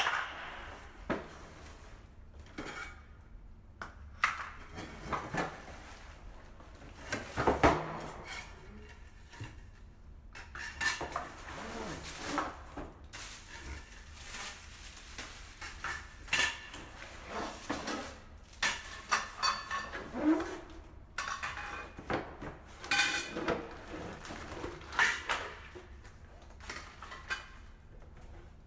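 Unpacking a flat-pack garment rack: the cardboard box and plastic-wrapped metal poles being handled, with irregular rustling and scattered knocks and clinks of the metal parts.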